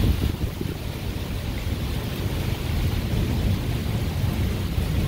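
Rain falling steadily, with a constant deep rumble underneath.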